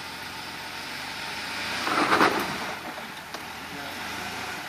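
Off-road 4x4's engine running under light throttle, with a brief rev about two seconds in as it eases over the rocks.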